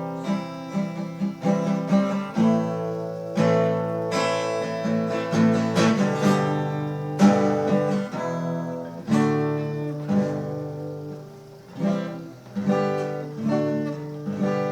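Acoustic guitar being strummed and picked, chord after chord, each ringing out and decaying before the next.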